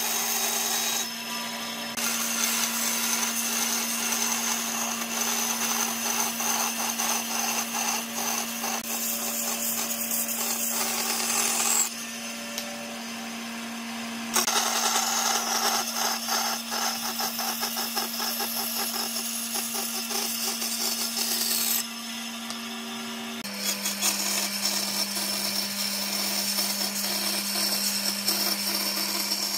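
Band saw cutting curves through a thick pine board: the blade rasps through the wood over the saw's steady motor hum. The cutting noise drops back to the hum for short spells three times.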